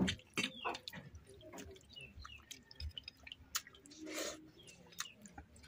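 Wet squelching, clicking and dripping of a hand squeezing water-soaked rice against a steel bowl, with a short, denser wet burst about four seconds in as a handful is eaten.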